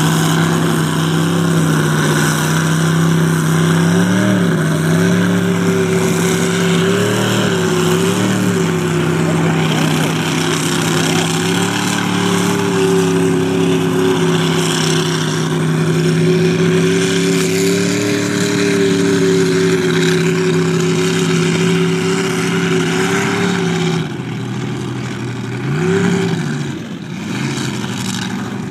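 Mud truck's engine running hard at high, steady revs as the truck churns through a mud pit, with brief rev blips now and then. About four seconds before the end the throttle drops off, followed by one short rev.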